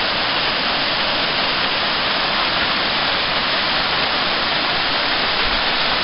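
Waterfall pouring over a rock face into a shallow pool: a steady, unbroken rush of water.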